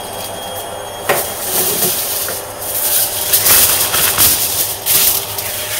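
Aluminium foil being crumpled by hand into a small ball: loud, irregular crackling and crinkling starting about a second in, over a steady low hum.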